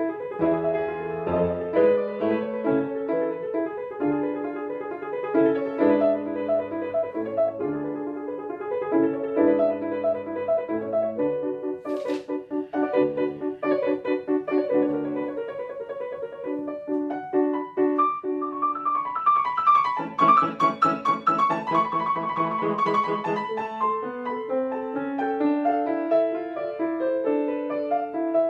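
Two grand pianos played together as a piano duo. About two-thirds of the way through, a rising run leads into a passage of fast repeated chords.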